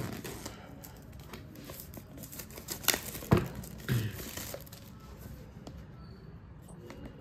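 Hands handling a cardboard smartwatch box and its plastic packaging: light scrapes and crinkles, with a few sharp knocks a little after three seconds in, the second of them the loudest.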